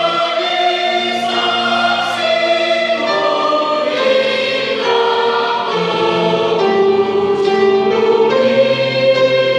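A combined church choir singing a sacred anthem in harmony, holding long chords that change every second or two.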